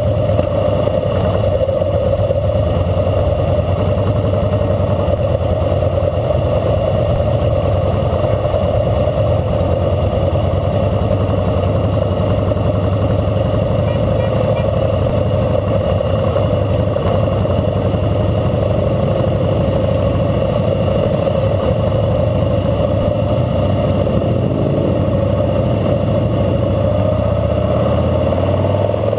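2012 Harley-Davidson Fat Boy Lo's V-twin engine running steadily at a slow cruising pace, heard from the bike itself. Its pitch shifts slightly near the end as the throttle changes.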